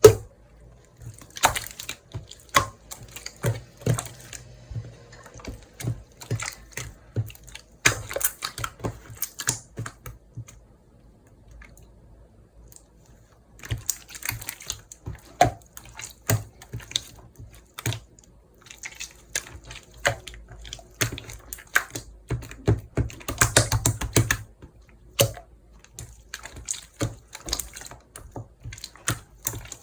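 Homemade chalbang slime, a soft watery slime, squished and pressed by hand, giving wet clicks and pops in irregular bunches, with a quieter lull about a third of the way in.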